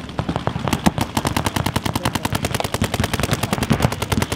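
Paintball markers firing in rapid volleys: many sharp pops a second, several guns overlapping, scattered at first and then a dense stream from just under a second in.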